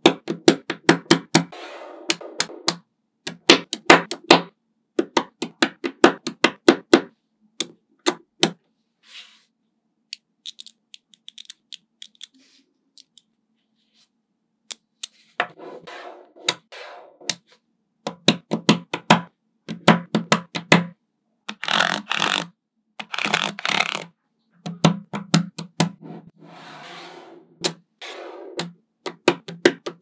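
Small magnetic balls clicking sharply as they snap together, in quick clusters of clicks with denser rattling stretches as groups of balls are handled. There is a quieter gap of a few seconds near the middle.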